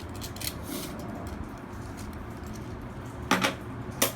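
Half-dollar coins clinking and knocking together as a new coin roll is handled, with a few light clicks and then two sharp, louder clacks near the end.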